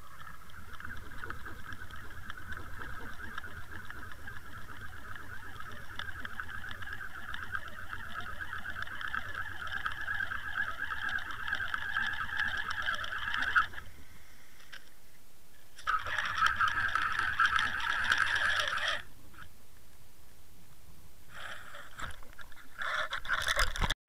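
Water rushing past an underwater camera towed through the water ahead of a trolled lure, a steady fluttering hiss. It drops out about two-thirds of the way through and returns briefly. Near the end there are short splashes and knocks as the camera is lifted out at the boat.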